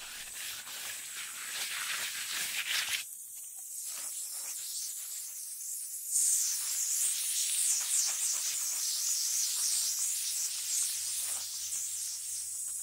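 Water spraying from a hose nozzle onto concrete-filled bags: a steady hiss, louder and sharper from about six seconds in. The spray soaks the bags and washes sand and cement down into the cracks and voids.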